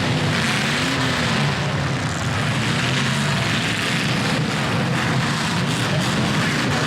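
Demolition derby cars' engines running and revving together, their pitch rising and falling, over a steady roar of noise.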